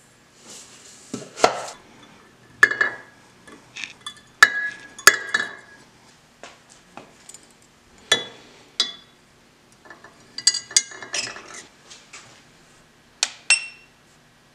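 Metal clinking and knocking against a glass Mason jar of water as a steel Allen key and a rusty hammer head are set into it: irregular sharp clinks in clusters, several with a short ringing tone.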